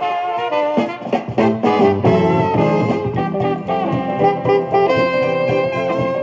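Music playing from a vinyl record on an Electrohome Montrose turntable through McKinley 2.0 powered bookshelf speakers. The playback is clean, with no surface crackle or pop.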